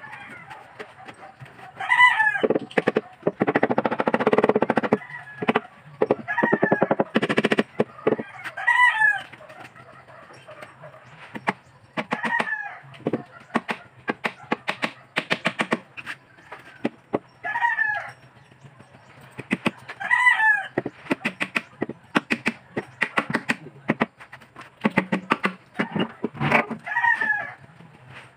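Chickens calling, short calls repeated every few seconds, over bursts of rapid knocking and rasping from plywood being worked by hand.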